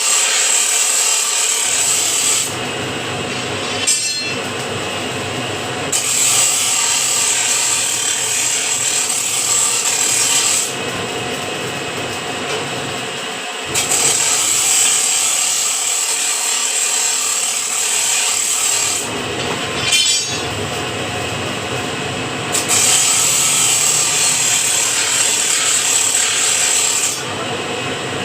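Metalworking machine working steel square bar in a repeating cycle: about four seconds of loud, hissing metal rubbing, then a few seconds quieter, over and over. A sharp clank comes twice, about four and twenty seconds in.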